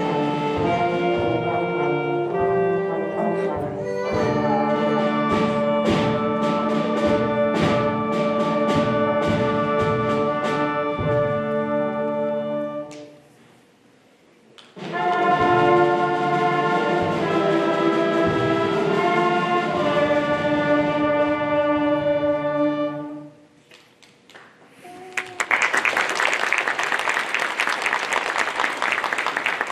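School concert band of brass, woodwinds and percussion playing, with steady drum strokes through the first section; the music breaks off at about 13 s, returns for a last section of held chords and stops at about 23 s. Audience applause breaks out a couple of seconds later and runs to the end.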